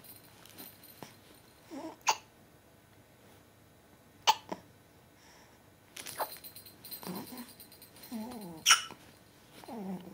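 Hiccups, four sharp ones about two seconds apart, with softer sounds between them.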